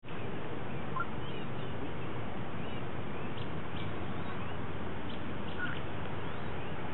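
Steady outdoor background noise with faint, scattered chirps of small birds.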